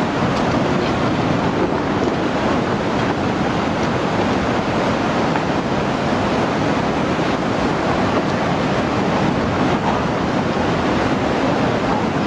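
Tsunami floodwater surging through a street, a steady rush of turbulent water.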